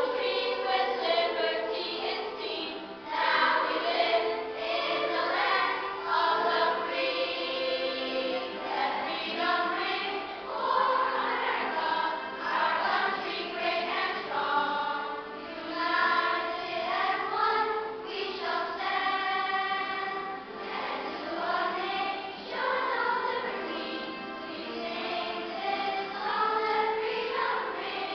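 A children's choir singing a song together, continuously.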